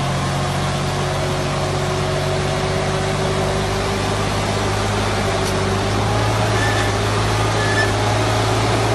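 Massey Ferguson 3060 tractor's diesel engine running steadily under a heavy load, a constant low drone that grows slightly louder about six seconds in.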